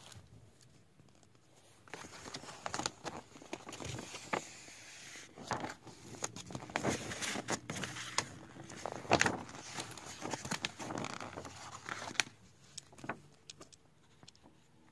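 A large rolled paper poster being unrolled and flattened by hand: irregular paper rustling and crackling with sharp snaps, busiest through the middle and quieter at the start and near the end.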